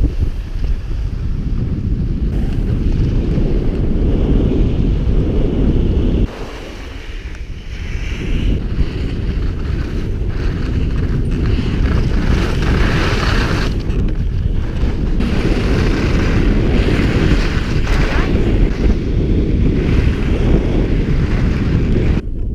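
Wind buffeting the camera's microphone while skiing downhill, a loud, steady rumble, with the hiss of skis sliding and scraping over the snow coming and going. The rumble drops suddenly about six seconds in, then builds again.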